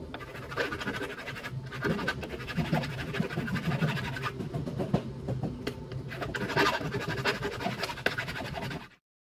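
Sandpaper scrubbing the metal parts of a Toyota Hilux starter motor in uneven scratchy strokes, over a steady low hum, to clean them; it cuts off abruptly near the end.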